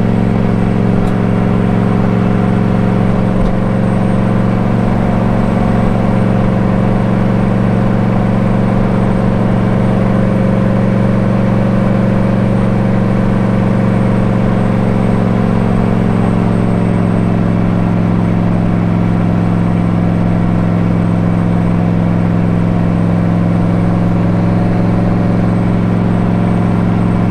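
Turbocharged engine of a widebody Nissan 300ZX (Z31) race car droning steadily at highway cruising speed, with tyre and road noise, heard from inside the stripped-out, roll-caged cabin. The engine note eases slightly in pitch about halfway through.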